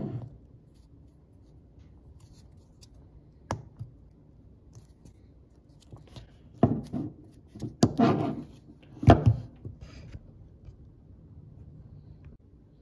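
Side-cutting pliers snipping the plastic nozzle tips off two-part epoxy tubes, with the tubes and pliers handled on the bench: a single sharp click about three and a half seconds in, then a cluster of louder snips and knocks over about three seconds, the loudest near the end of that cluster.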